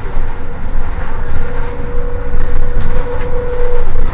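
Irizar i2e battery-electric bus running, its electric drive giving a steady whine over a heavy low rumble; the whine grows stronger about a second and a half in. Two light clicks come about three seconds in.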